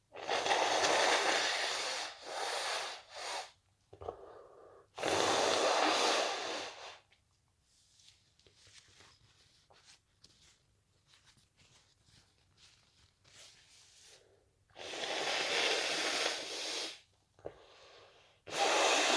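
A person with a cold blowing their nose into a tissue: long noisy blasts of one to two seconds, about four rounds with short follow-up blows, and faint rustling in between.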